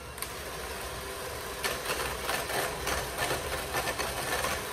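Electric mixer running in a bowl of egg, cocoa and sugar batter, a steady motor hum. From about two seconds in, its beaters clatter more busily.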